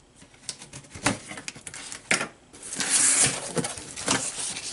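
Packing tape on a cardboard shipping box being cut and pulled open: scattered clicks and taps on the cardboard, then a longer rasping rip about three seconds in.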